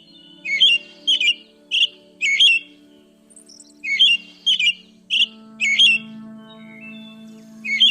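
A bird giving short, sharp calls about twice a second in two runs with a brief pause between, over background music with sustained notes.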